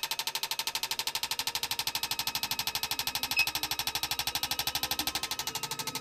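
Motorcycle fuel injectors from a Honda RC45 being pulsed on an injector flow-test bench: a rapid, even ticking of about ten clicks a second with a steady tone beneath, and one louder click about three and a half seconds in. This is a test of their spray pattern and flow.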